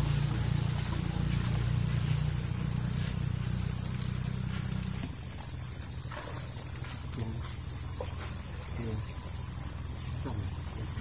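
Steady high-pitched chirring of insects, with a low rumble underneath that fades about five seconds in.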